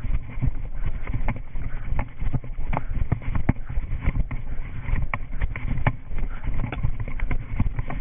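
A runner's footsteps, an irregular patter of thuds and clicks, first on grass and then up concrete steps, picked up by a GoPro worn on her body. Under them runs a low rumble of wind and jostling on the camera's microphone.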